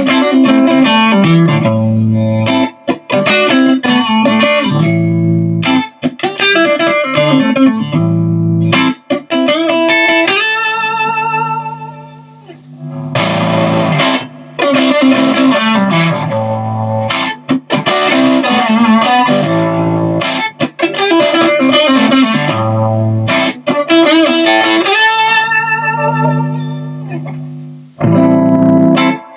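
Electric guitar played through an amp with a Mooer Green Mile overdrive pedal in the chain: riffs and chords in short phrases, with a held note given vibrato about a dozen seconds in and a phrase that dies away near the end.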